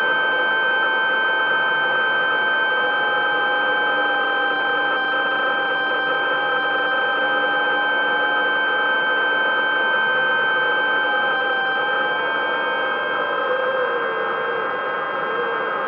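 Steady machine whine made of several fixed high tones over a hiss, with one tone that wavers and then drops in pitch about fourteen seconds in.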